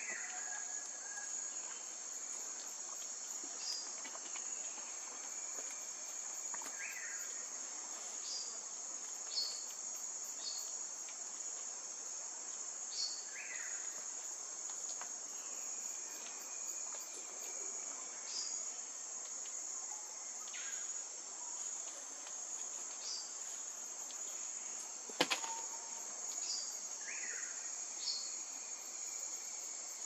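Steady high-pitched insect chorus, with a few short bird chirps and brief falling whistles scattered through it, and one sharp click about 25 seconds in.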